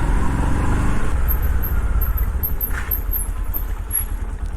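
Bajaj CT 110 X motorcycle's single-cylinder engine running as the bike rides off, under a steady low rumble.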